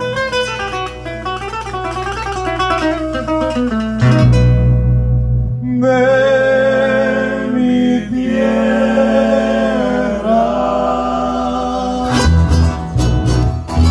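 Small folk band playing a northern Nicaraguan mazurka on acoustic guitars and keyboard. The music changes abruptly a few times, about four, five and a half, and twelve seconds in.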